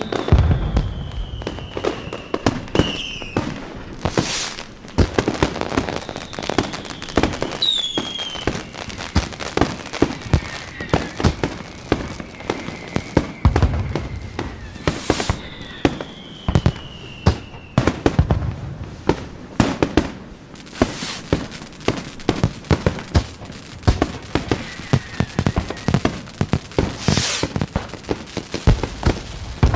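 Fireworks going off: a constant run of crackling bangs and pops, with a handful of much louder bangs spread through. Several high whistles slide slowly down in pitch.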